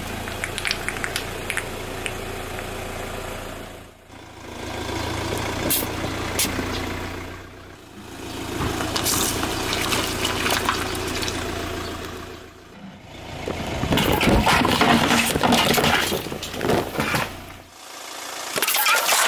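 A car's engine running at idle while its tyre rolls slowly over small objects and crushes them, with crackling, popping and clicking. There are several short takes, each fading out briefly; the densest, loudest crackling comes about three quarters of the way through.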